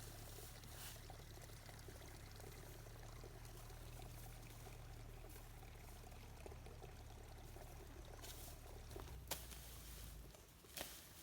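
Faint, steady pouring or trickling water, with a couple of sharp clicks near the end.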